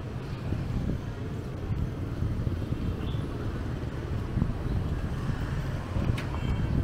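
City street traffic: a steady, low rumble of passing vehicles.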